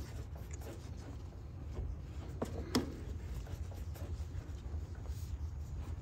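Tubing cutter being turned around a copper refrigerant line to cut it, a faint scratching and rubbing, with two short squeaks about two and a half seconds in. A low steady hum runs underneath.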